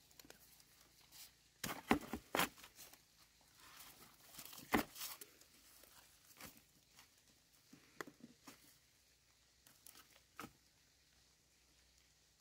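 Scattered rustles and knocks, with the loudest clusters about two seconds and about five seconds in, and a few lighter knocks later.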